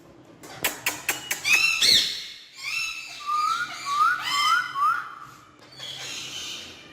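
Pet green parrot calling: a quick run of sharp clicks, then whistled chirps and squawk-like calls, with a series of four short rising whistles in the middle.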